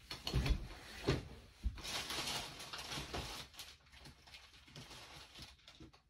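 Someone rummaging for parts: a few knocks and clicks in the first two seconds, a stretch of rustling, then smaller clicks dying away.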